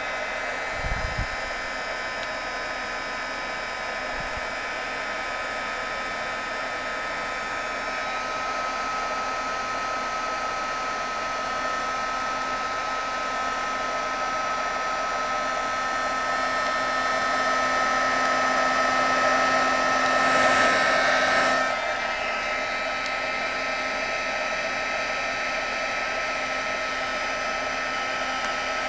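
Craft heat gun running steadily: a rush of blown air with a steady whine over it, as it heats wax paper to melt a tissue-paper image into a candle. It grows gradually louder until about twenty seconds in, then drops back a little.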